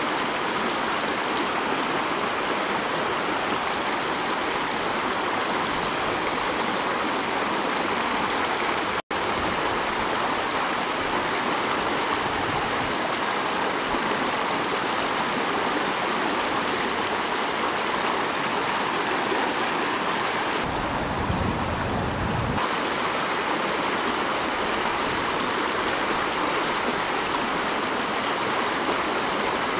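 Steady rushing of river water flowing, an even hiss with no birdsong or other sounds over it. It cuts out for an instant about nine seconds in, and for about two seconds near the two-thirds mark it turns deeper, with more low rumble and less hiss.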